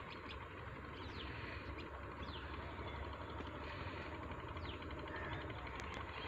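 Outdoor rural ambience: a steady low rumble with faint, short falling bird chirps every second or so.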